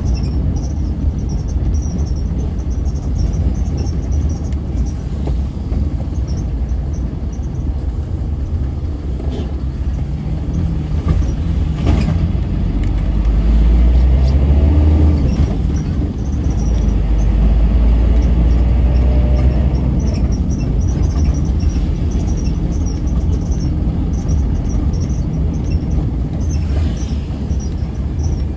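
Steady low rumble of a vehicle driving slowly along a rough, wet road: engine, tyre and wind noise. It swells twice in the middle.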